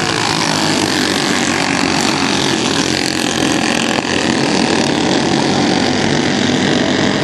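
Race cars' engines running at speed around the track. The engine noise is loud and steady throughout.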